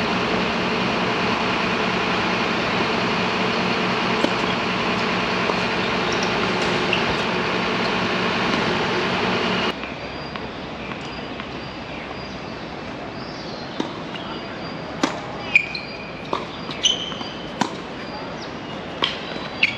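A loud, steady noise with a low hum, cutting off suddenly about ten seconds in. Then come tennis ball strikes and bounces, about a dozen sharp hits, with a few short squeaks.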